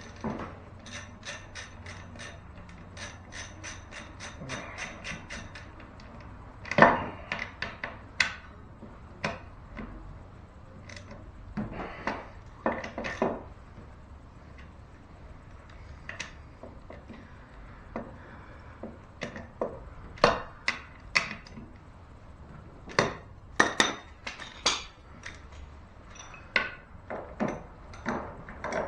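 Ratchet wrench clicking in a quick, even run of about four or five clicks a second as bolts on an outboard motor's lower unit are turned, then scattered clacks and knocks of hand tools on metal.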